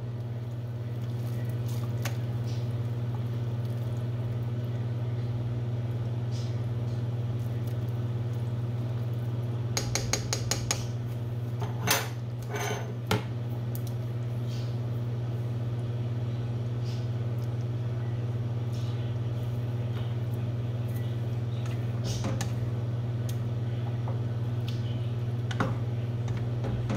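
A cooking utensil clinking and scraping against metal pots a few times, in a cluster around ten to thirteen seconds in and again near the end, over a steady low hum.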